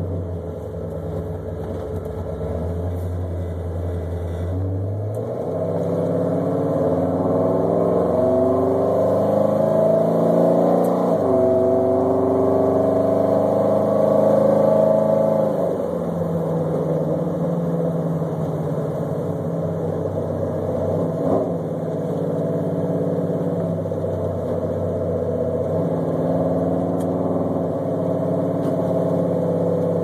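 Pontiac 428 V8 in a 1975 Trans Am, running low and steady at first, then accelerating from about five seconds in. The engine note rises, drops at an upshift of the Turbo 400 automatic, rises again and drops at a second upshift, then settles into a steady cruise. The owner says the carburettor tuning is still not quite right.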